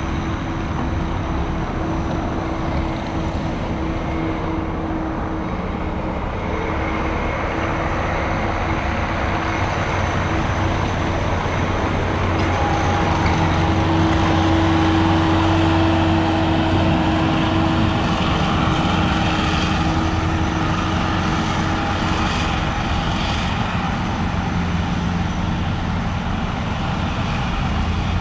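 Steady motor-vehicle noise: an engine running with a low rumble, growing a little louder about halfway through and then settling again.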